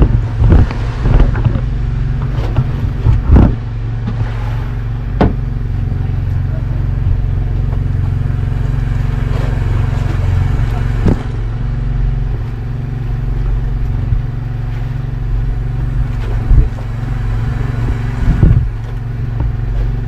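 Engine aboard an outrigger fishing boat running at a steady low drone, with scattered sharp knocks and thumps from work on the hull and bamboo outriggers.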